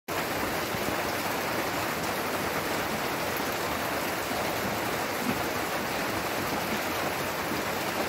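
A steady, even hiss that does not let up, with a faint tick or two near the middle.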